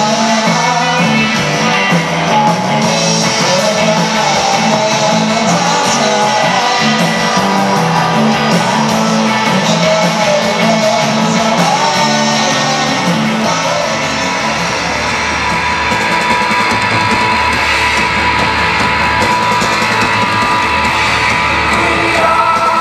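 Live rock band playing loud electric guitars, bass and drums with a singer. About two-thirds of the way through, the music changes to a different song.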